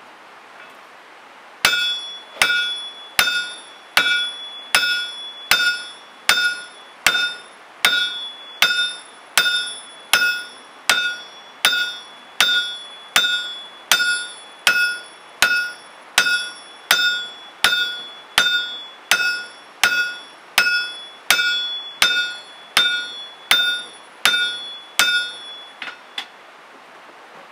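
A hammer striking metal in slow, even blows, a little more than one a second, about thirty in all. Each blow has a bright ringing tone. The blows stop near the end.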